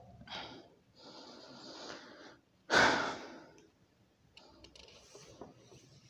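A man breathing close to a clip-on microphone, with one louder, sharp exhale about three seconds in, followed by faint clicks and rustles.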